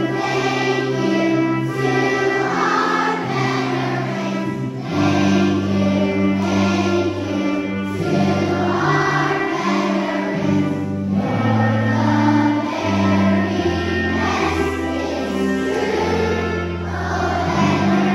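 A large children's choir singing in phrases over an instrumental accompaniment of steady held chords.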